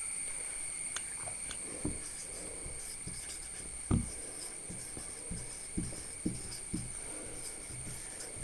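Faint room hiss with a steady high whine, and a handful of soft, dull knocks: one about two seconds in, a louder one about four seconds in, and four lighter ones spaced about half a second apart near the end.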